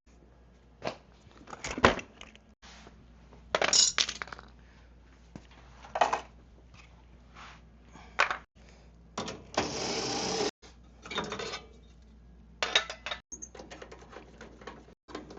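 Hand tools and loose metal parts clinking and knocking during disassembly of a car's front lighting: scattered sharp clicks and clanks at irregular intervals, with a scrape lasting about a second just past the middle.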